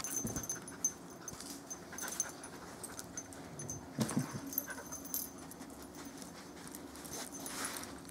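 Dog panting, with scattered light clicks of claws on a tile floor.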